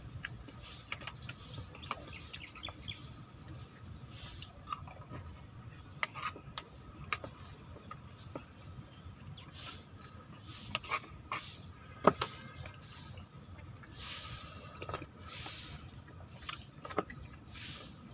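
A spoon clicking and scraping in a plastic bowl while eating, in scattered light clicks with the sharpest about twelve seconds in. Under it runs a steady high insect buzz.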